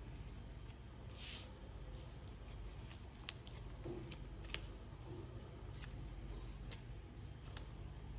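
Origami paper being handled and folded: scattered crisp crackles and taps, with a brief rustle about a second in, over a faint steady low hum.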